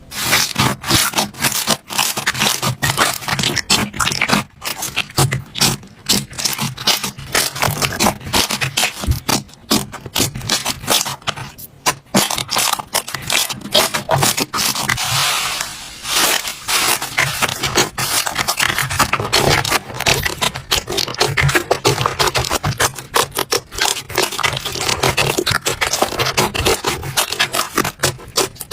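Slime being squeezed and worked by hand, giving a dense run of crackling, clicking pops. For a couple of seconds around the middle it turns to a denser, hissier crackle.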